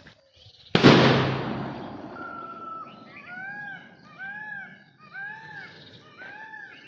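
A sutli bomb firecracker goes off with a single sharp bang just under a second in, its rumble dying away over about a second. An animal then calls repeatedly, short arched calls about one a second.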